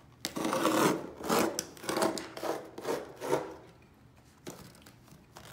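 Utility knife blade slicing through carpet padding along the tack strip: about six rasping cutting strokes in quick succession, the first the longest, then a few fainter scrapes near the end. The blade is already starting to dull.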